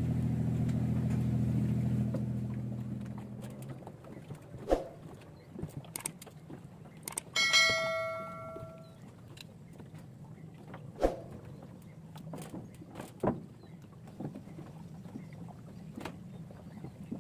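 A small engine running steadily, fading out about three seconds in, then scattered knocks and one metallic ring near the middle that dies away over about a second and a half.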